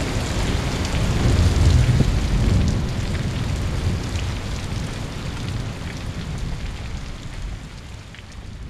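Heavy rain pouring down, with a low rumble of thunder that swells about a second in and then dies away. The whole sound gradually fades.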